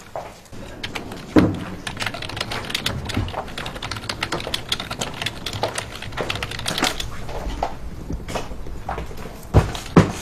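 Rapid, continuous clicking of typing on a computer keyboard, followed by two loud knocks near the end.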